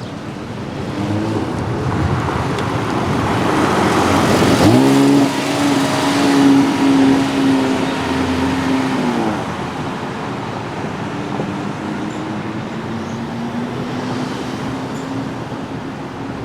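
Sports car engine passing in street traffic: its note sweeps up sharply about four and a half seconds in, holds a steady pitch for roughly four seconds, then eases off.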